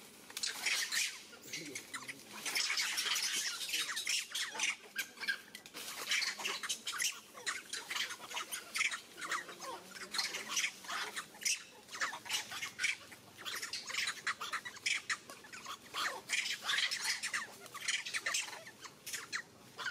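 Many short, high-pitched animal calls, rapid and overlapping, in a continuous chatter.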